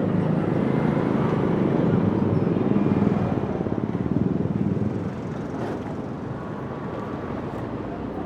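City street ambience: a steady low rumble, loudest over the first five seconds and then dropping to a quieter background.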